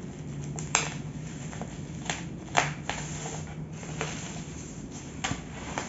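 Bubble-wrapped, taped parcel being slit open with a mini cutter: plastic crackling with a handful of sharp, irregular clicks and snaps.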